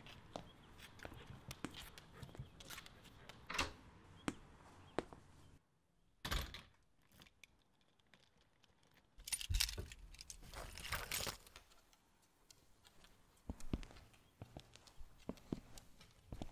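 Keys jangling and clicking in scattered bursts, with a near-silent stretch of a few seconds partway through.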